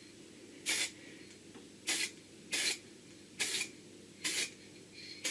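Blue spray paint being sprayed onto a metal trolley in six short hissing bursts, about one a second.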